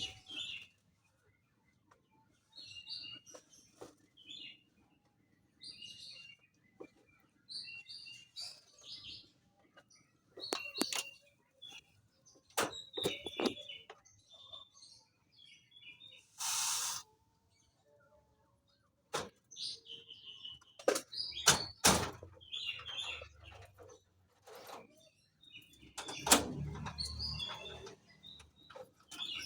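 Lovebird chirping in short, high calls, mixed with scattered sharp clicks and knocks. A brief hiss comes about seventeen seconds in, and a low rumble comes near the end.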